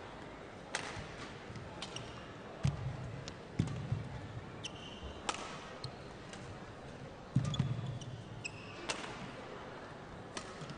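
Badminton rackets striking the shuttlecock in a long rally, a sharp crack every one to two seconds. Shoes squeak on the court mat and heavy footfalls thump as the players lunge.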